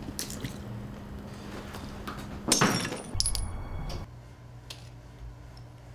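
A sudden loud crash about two and a half seconds in, then a few light metallic clinks with a brief ringing: a spent brass pistol cartridge case dropping and bouncing on a hard floor.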